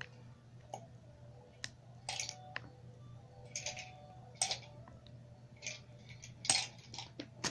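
Scattered light clicks and short crinkles, about one every second or so, from ice being handled in a clear plastic bag, over a faint steady low hum.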